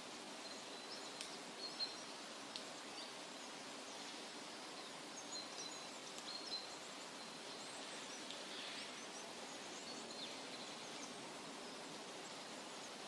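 Forest ambience: a steady soft hiss, with small birds chirping briefly now and then, mostly in the first half.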